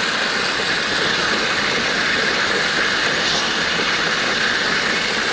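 Round baler driven slowly off a tractor's PTO, its chains and rollers running with a steady mechanical clatter over the tractor's diesel engine ticking over, as the drive chains are run in to be oiled.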